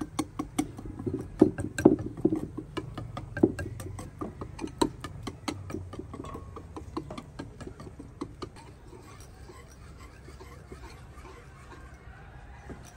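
A rapid, irregular run of sharp clicks and taps over a faint low steady background, thick in the first few seconds and thinning out after about eight.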